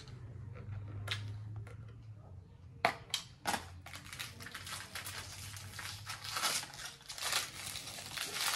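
Toy packaging being opened by hand: a few sharp snaps about three seconds in, then steady crinkling and crushing of the wrapping.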